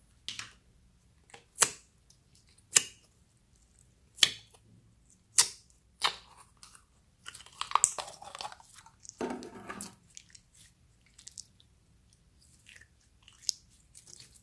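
Clear slime with plastic gems mixed in, being squeezed and pulled by hand: a string of sharp pops about a second apart, then a longer crackling squelch about seven seconds in as it comes out of its tub, and a few soft clicks near the end.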